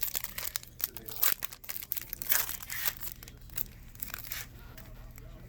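Foil trading-card pack wrappers crinkling and tearing as packs are opened, a dense run of rapid crackles with several louder ones.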